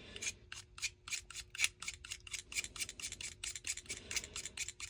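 Knife blade scraping shavings off a bar of green polishing rouge in quick, regular strokes, about four or five a second.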